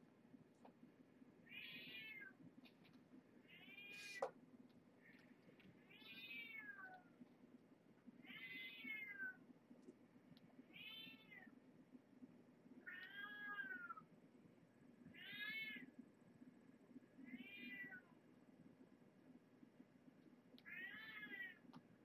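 A four-to-five-week-old kitten meowing repeatedly: about nine short meows, each rising and falling in pitch, roughly two seconds apart. A sharp click comes about four seconds in.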